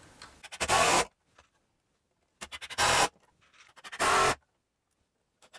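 Cordless drill driving screws into wood in three short bursts, each about half a second long.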